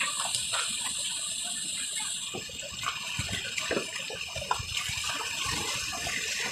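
Stream water rushing over rocks, a steady hiss, with scattered knocks and scuffs from footsteps on wet stones and the phone being handled.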